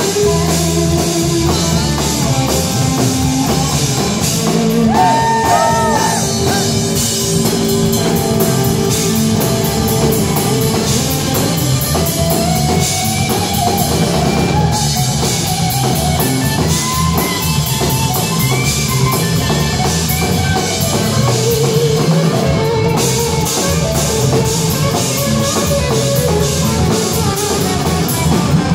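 A live rock band plays loudly: electric guitar lines gliding up and down over an electric bass and a drum kit.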